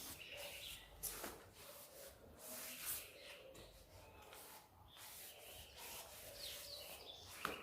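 Faint scrubbing of a broom across a floor wet with soapy water, in soft uneven strokes. A bird chirps faintly near the end.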